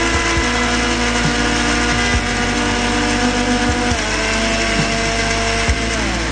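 Electric mixer-grinder running, grinding fried peanuts, dry red chillies and garlic with a little water into a paste. Its steady motor whine sinks slowly in pitch, drops a step about four seconds in, and winds down near the end.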